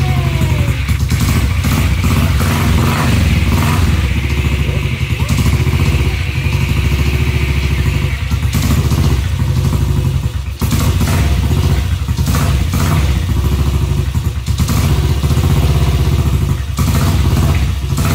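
Freshly rebuilt BSA single-cylinder unit engine in a C15 motorcycle, running on its first start after long storage: the revs fall away just as it begins, then it settles into a steady idle.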